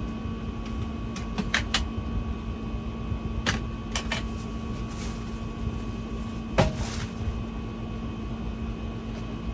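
Scattered clicks and knocks of things being handled and moved, the loudest about two-thirds of the way in with a short rustle, over a steady appliance hum.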